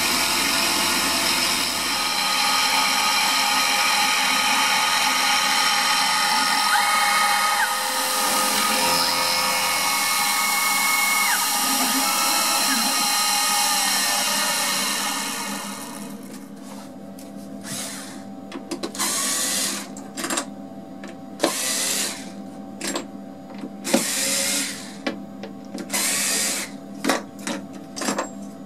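CNC router spindle running an end mill through a stack of glued 5 mm plywood, a steady loud cutting noise that stops about halfway through. After that come scattered short knocks and rustles of cut wooden pieces being handled.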